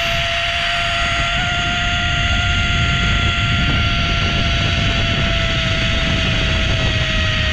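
Zipline trolley pulleys running along the steel cable: a steady high whine over heavy wind rush on the microphone, its pitch sinking very slightly as the ride goes on.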